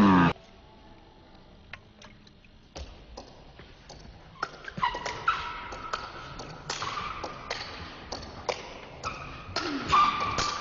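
Table tennis ball clicking off the rackets and the table in a rally, the hits coming at irregular intervals from about three seconds in. A short loud shout comes right at the start.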